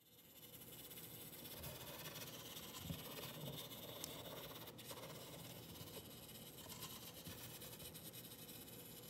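Drawing machine's small hobby servo motor running faintly, with a red marker scraping on paper, over a steady hiss. A light knock comes about three seconds in.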